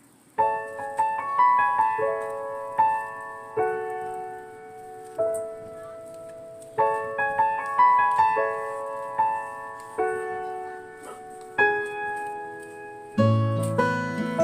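Background music: a gentle piano melody of struck, decaying notes in repeating phrases, with a fuller accompaniment and bass coming in near the end.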